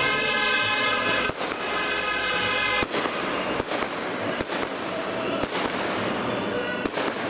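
Fireworks display: aerial shells bursting in a series of sharp bangs at uneven intervals.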